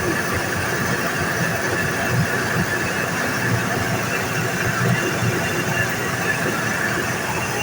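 Package air-conditioner unit running with a steady mechanical squeal over a low rumble, a noise the technicians put down to a worn bearing that needs replacing.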